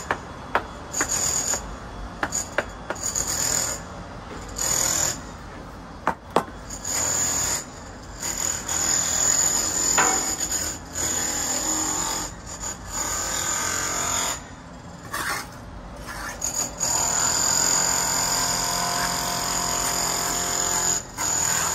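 Heavy concrete blocks scraping and rubbing as they are bedded onto mortar and worked into place, in stretches of a second or more, the longest near the end, with a few sharp knocks in the middle.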